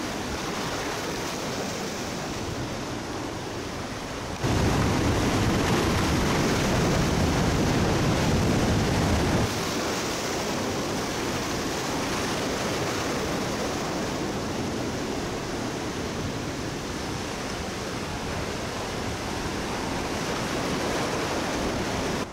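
Surf breaking and washing against the rocks of a jetty, a steady rush of water. It turns suddenly louder and deeper about four seconds in and drops back about five seconds later.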